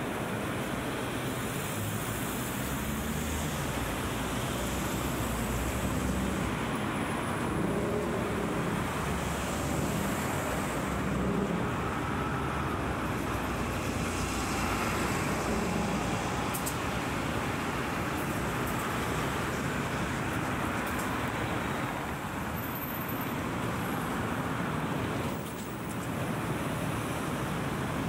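Street ambience: a steady wash of road traffic noise, with low rumble from passing vehicles.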